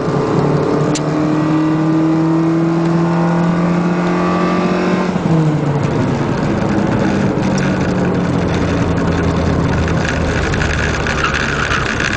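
Mitsubishi club race car's engine heard from inside the cabin, pulling hard with its note climbing steadily, then dropping sharply about five seconds in and running on at a lower pitch, over steady wind and road noise.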